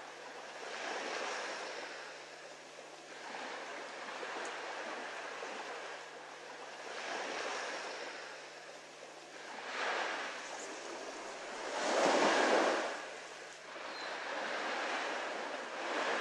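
Ocean surf washing onto a beach, swelling and falling back every few seconds, with the biggest wave about twelve seconds in. A faint steady low hum runs underneath.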